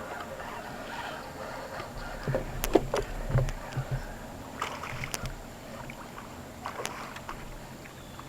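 Knocks and low thumps against a small skiff's hull, with light water sloshing, while a hooked fish is fought beside the boat. The knocks cluster about two to four seconds in, with a few more sharp clicks later.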